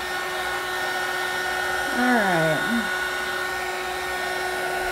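Heat gun running steadily, a constant blowing hiss with a fixed motor hum. About two seconds in, a brief falling hum from a voice.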